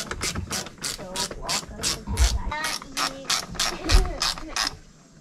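Hand ratchet wrench clicking in quick, even strokes, about four or five clicks a second, as it runs bolts into the door grab area of a door panel; the clicking stops near the end.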